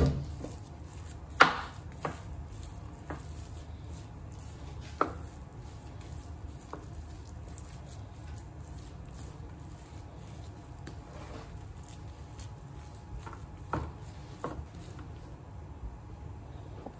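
A wooden spoon spreads and presses sticky sweet rice (biko) in a metal baking pan, with scattered knocks and taps of the spoon against the pan. The loudest knock comes about a second and a half in.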